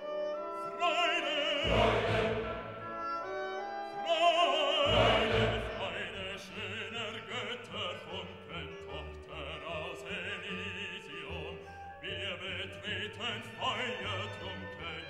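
Background classical music with an operatic voice singing with wide vibrato over orchestral accompaniment.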